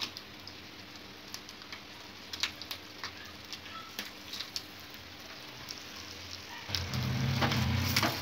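A tempering of mustard seeds, urad dal and broken dried red chillies sizzling in hot oil, with scattered crackles and pops. A louder low rumble comes in about seven seconds in.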